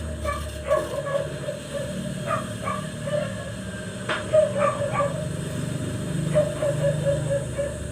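A dog barking and yipping repeatedly, with a single sharp knock about four seconds in.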